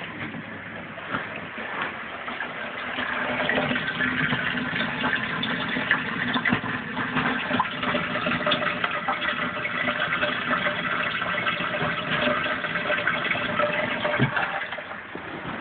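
Aquarium filter running in a turtle tank: water splashing and gurgling over a steady motor hum. It grows louder about three seconds in and falls back near the end.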